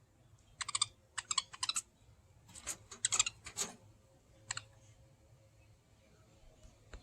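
Pet budgerigars chirping: quick clusters of short, sharp chirps, a first run of four or five, a second run a second later, then a single chirp.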